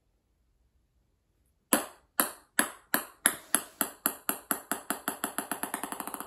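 A ping pong ball dropped onto a hard floor, bouncing about twenty times. The clicks start loud and spaced, then come faster and softer until they run together into a rapid rattle as the ball settles.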